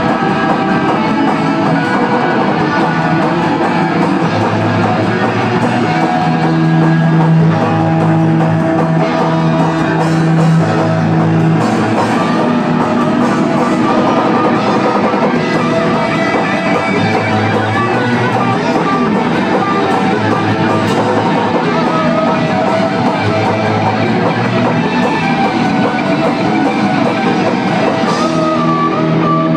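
A live rock band playing loud electric guitar and a drum kit, without a break.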